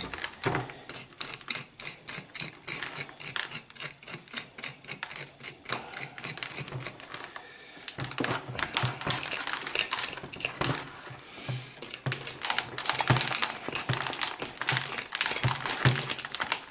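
Rapid, irregular scratching and clicking of a hand tool raking through compacted bonsai soil and the circling roots of a root-bound Japanese maple root ball, with a couple of brief pauses.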